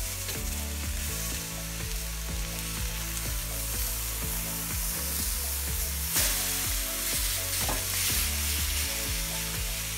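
Venison steaks sizzling on a hot cast iron grill pan as they are lifted and turned with a fork, the sizzle swelling briefly about six seconds in. Background music with a steady beat plays underneath.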